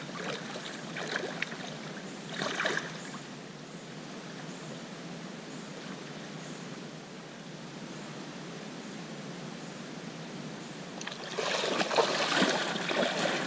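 Bare feet wading and splashing through shallow lake water, a few splashes early on, then louder, quicker splashing near the end as someone runs into the water. A steady wash of water and outdoor noise lies underneath.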